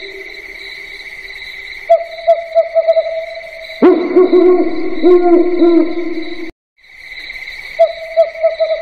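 Spooky owl-hoot sound effect: repeated short hoots over a steady high insect-like drone. About four seconds in a louder, deeper run of hoots comes in abruptly. Near six and a half seconds the sound cuts out for a moment, then the drone and hoots resume.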